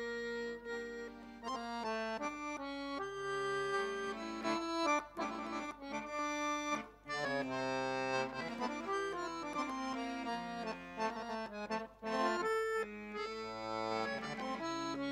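Solo Dallapè piano accordion playing a csárdás: fast runs of notes over held chords, with brief breaks about seven and twelve seconds in.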